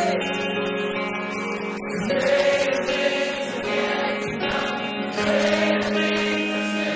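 Christian worship music: a choir singing over held chords that change about two and five seconds in.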